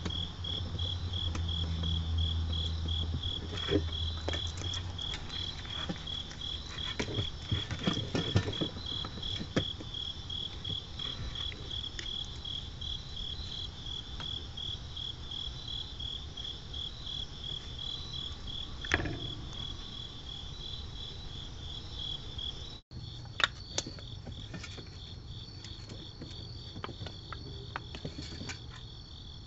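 Crickets chirping in a steady, evenly pulsing rhythm, with scattered sharp clicks and knocks from a raccoon eating at a food bowl.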